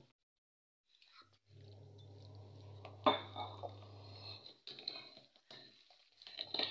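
A sharp metal clink of cookware about three seconds in, followed by a few lighter knocks, over a faint low hum.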